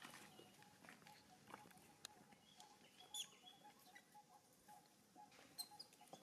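Near silence: faint scattered ticks and rustles, with a few brief high chirps.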